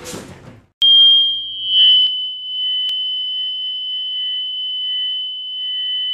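A steady high-pitched electronic whine, a single held tone with fainter tones above and below it, cutting in abruptly. A low hum sits under it for its first second or so, and there is a single click about three seconds in.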